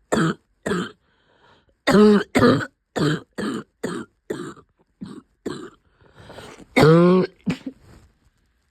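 A person coughing in fits, with a cough that has gone on for weeks. Two coughs come first, then after a short pause a fast run of about a dozen coughs. About seven seconds in there is a longer voiced cough, followed by two more before the coughing stops.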